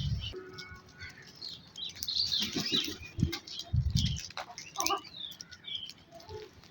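Birds calling: many short, high chirps scattered throughout, with two brief low sounds around the middle.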